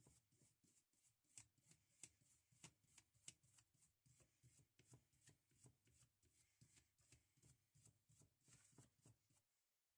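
Near silence, with very faint, rhythmic scrubbing strokes, about three a second: the Stanley hammer being cleaned by hand.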